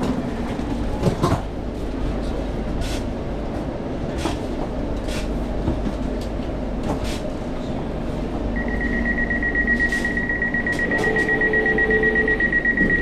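Passenger doors of a London Overground Class 710 electric train at a station stop, over the train's steady hum: a few knocks about a second in as the doors open, then, from about two-thirds of the way in, a rapid high-pitched beeping, the warning that the doors are about to close.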